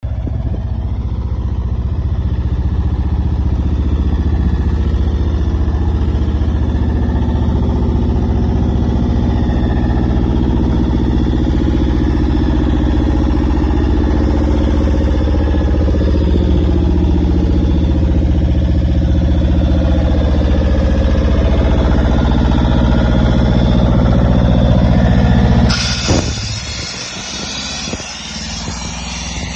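Towable site air compressor's engine running steadily, then shutting off abruptly about 26 seconds in, leaving a hiss.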